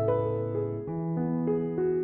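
Background music: a soft keyboard playing held chords, the notes changing every half second or so.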